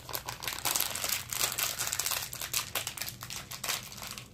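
Gift wrapping and packaging crinkling and rustling in someone's hands in an irregular run of crackles: a hard-to-open package being worked at without success.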